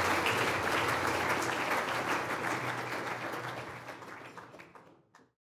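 Audience applauding, the clapping fading away over the last couple of seconds and then cutting off to silence.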